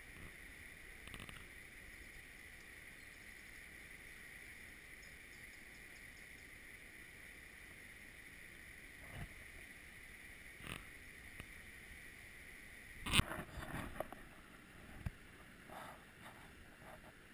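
Steady rushing of a shallow mountain stream. About thirteen seconds in there is one sharp knock, then a few lighter knocks and splashes near the end.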